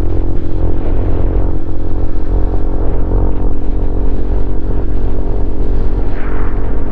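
Honda CRF150L's air-cooled single-cylinder four-stroke engine running at a steady pitch through a Norifumi Noctus T5 aftermarket exhaust, heard from a helmet-mounted camera.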